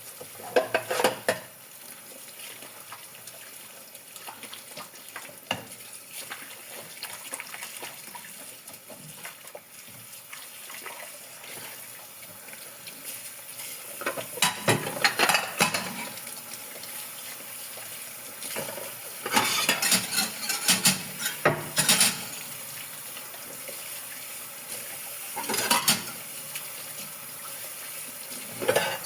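Dishes and cutlery clinking and clattering against each other in a sink as they are washed, in several short bouts, over a steady hiss of running water.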